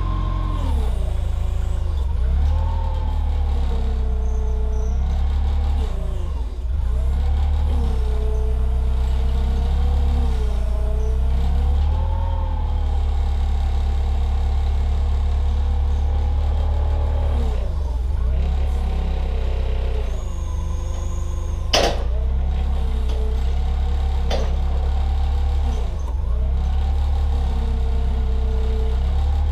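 Yale forklift engine running, its speed rising and falling again and again as a log on the forks is eased onto the sawmill. A single sharp knock comes about three-quarters of the way through.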